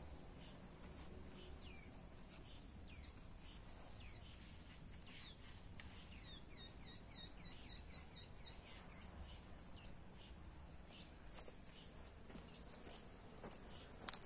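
Faint wild bird calls: short descending chirps, with a quick run of repeated chirps, about five a second, in the middle, over a low rumble. Footsteps on dry ground come in near the end.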